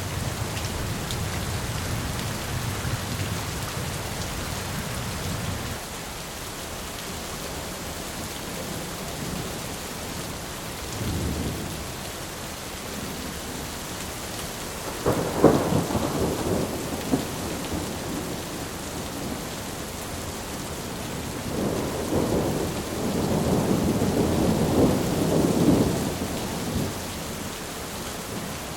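Steady heavy rain with thunder: a low rumble fades out about six seconds in, a sharp crack of thunder comes about fifteen seconds in, and a longer rolling rumble follows near the end.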